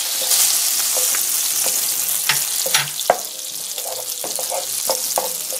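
Butter sizzling and bubbling as it melts in a hot nonstick frying pan, with a steady hiss. A wooden spatula stirs it, giving a few light taps and scrapes against the pan.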